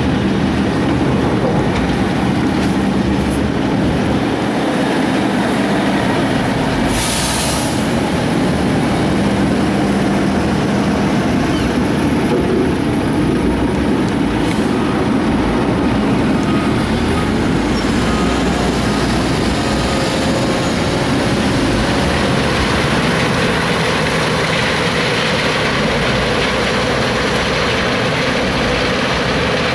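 Heavy diesel trucks running and moving, including a Volvo A30E articulated dump truck and a Scania tipper truck, with a steady engine drone. A brief hiss cuts in about seven seconds in.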